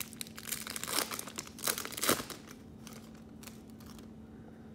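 Foil wrapper of a trading-card pack crinkling and tearing as it is opened by hand, with several louder rustles in the first half before it quietens about two and a half seconds in.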